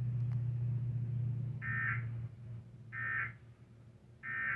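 Emergency Alert System end-of-message signal: three short, buzzy data bursts about a second apart, closing the severe thunderstorm warning broadcast. A steady low hum runs under the first two seconds.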